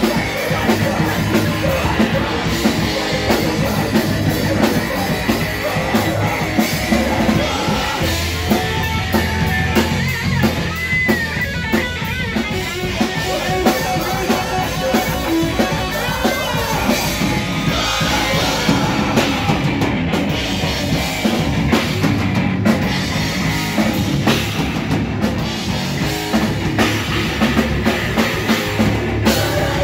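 A heavy rock band playing live: electric guitar and a drum kit, with a vocalist shouting into a microphone.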